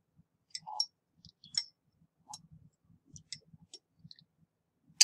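Scattered light clicks and taps from handling glassware and a plastic wash bottle while rinsing precipitate from a beaker into a filter funnel, irregular and unevenly spaced, with one sharper click at the very end.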